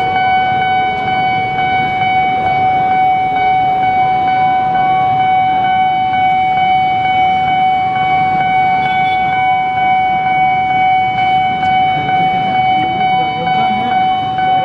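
Level-crossing warning alarm sounding as one unbroken, steady electronic tone, the signal that a train is approaching the crossing. Under it, a constant wash of street traffic with a few brief horn toots.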